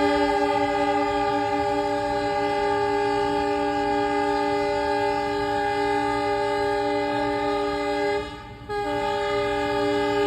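Indian Railways train horn sounding one long, steady multi-note chord. It breaks off for about half a second around eight seconds in, then sounds again.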